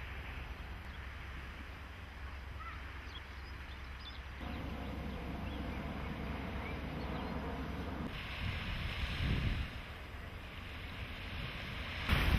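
Outdoor wind noise buffeting the camcorder microphone over a steady hiss. It grows stronger about four seconds in and gusts loudest around eight to nine seconds. A few faint high chirps sound in the first half.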